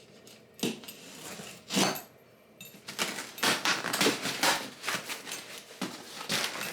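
A package being handled and opened by hand: a run of short rustles, scrapes and knocks, thickest from about three seconds in, with some light clinking.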